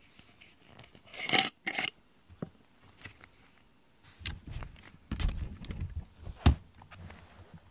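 Shed cat hair being pulled off a rubber grooming brush: two sharp rasping scrapes about a second and a half in, then rustling and handling bumps with one sharp knock near the end.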